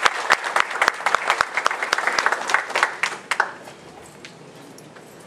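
Audience applauding; the clapping dies away a little over three seconds in.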